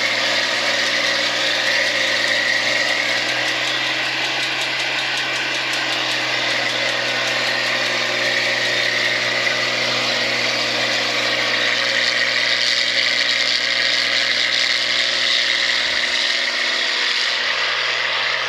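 Rice combine harvester's engine and machinery running steadily, with a constant hum and a broad whirring noise.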